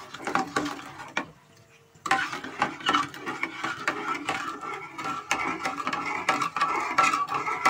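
A metal ladle stirring thin jelly mixture in an aluminium saucepan, scraping and clinking against the pan's sides and bottom, with a short pause about a second in.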